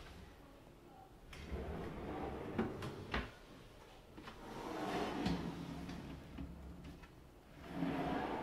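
Wardrobe drawers with glass fronts being pushed shut and pulled open on their runners: a few stretches of rolling slide, each ending in a soft knock.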